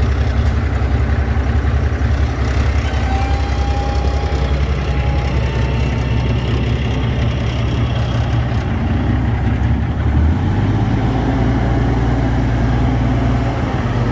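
2009 Peterbilt 388 semi-truck's diesel engine idling, a steady pulsing low drone; its low note shifts about ten seconds in.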